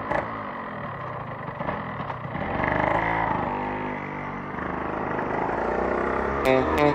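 Motorcycle engine running, its pitch rising and falling a few seconds in. Guitar music comes in just before the end.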